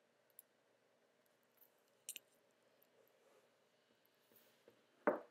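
Quiet room tone broken by computer mouse clicks: a faint click about half a second in and a sharper double click about two seconds in. A brief, louder thump comes near the end.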